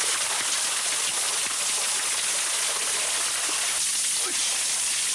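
A waterfall pouring onto a person standing beneath it: a steady, dense rush of falling and splashing water.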